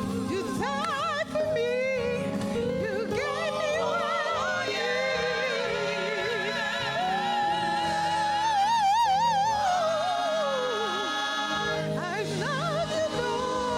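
A singer with heavy vibrato performing a slow song over steady held accompaniment. A little past the middle the voice holds one long note for about three seconds, then slides down off it.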